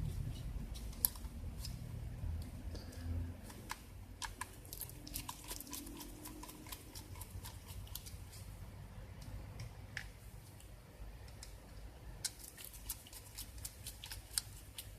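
Light clicks and taps of plastic and metal laptop parts being handled during disassembly, coming in scattered clusters.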